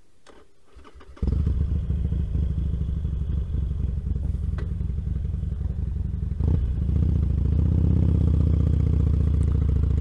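Motorcycle engine heard through a microphone inside the rider's helmet as the bike pulls away and rides off. A few faint clicks come first, then the engine sound comes in suddenly about a second in and runs steadily, growing louder after a short knock about six and a half seconds in.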